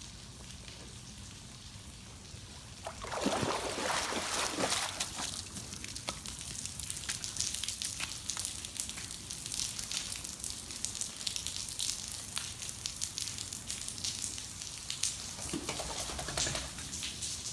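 Steady rain falling on a pool, then about three seconds in a Great Dane wades out of the water with a loud burst of splashing and sloshing. After that comes a long patter of drips and small sharp ticks, with another short splashy rush near the end.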